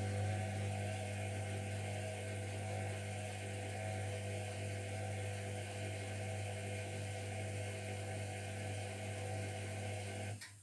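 Zerowatt/Hoover Performa 1000 washing machine running with a steady electric hum, cutting off suddenly near the end.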